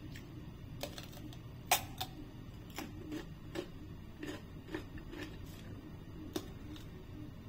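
Crunchy chewing of raw cucumber: a run of short crisp crunches, roughly two a second, with one sharp, louder crunch about two seconds in.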